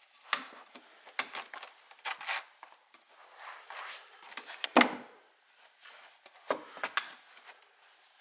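A white cane lodged in a felt-covered board, handled and wiggled by hand: a string of scrapes, creaks and knocks, the loudest a sharp knock about five seconds in.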